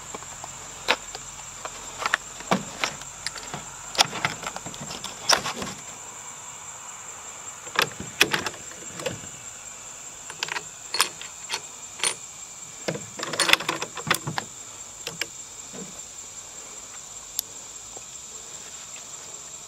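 Short clicks and knocks of rifle cartridges being taken from their box and loaded into a rifle, in irregular clusters. Insects chirp in a steady high drone behind them.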